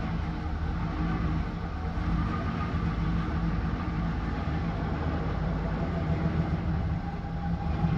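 Supercharged 383 stroker small-block V8 of a 1956 Chevy 3100 pickup running at a steady low idle, carrying on as the truck creeps forward and turns away.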